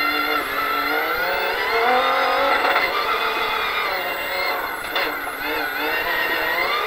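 Toyota Hilux rally-raid car's engine heard from inside the cockpit under hard driving on a dirt stage, its pitch rising and falling as the driver accelerates, shifts and lifts.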